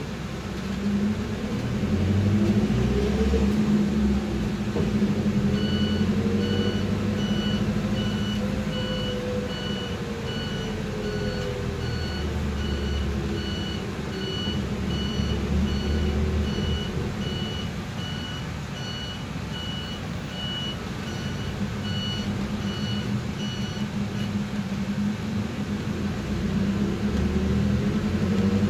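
Cabin sound of a Mitsubishi Fuso Rosa minibus under way: a steady low engine and drivetrain hum with a whine that rises and falls as the bus speeds up and slows. From about five seconds in until a few seconds before the end, the bus's electronic warning beeper sounds in a steady run of short, evenly spaced high beeps.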